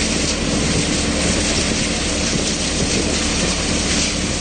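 Tractor-driven multicrop thresher running while threshing a crop: a steady, loud mechanical din of the machine together with the tractor's engine, with a constant hum underneath.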